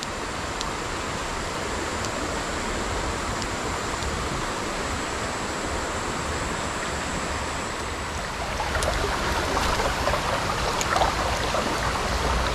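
Steady rush of flowing river water, growing louder and more rippling about eight seconds in.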